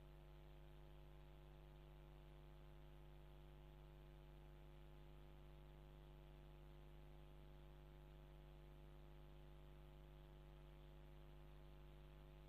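Near silence with only a faint, steady electrical hum.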